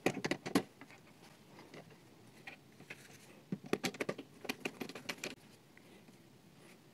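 Light clicks and ticks from a copper wire being fitted into DIN-rail screw terminal blocks and the terminals being worked tight by hand: a few at the start, then a quicker cluster from about three and a half to five seconds in.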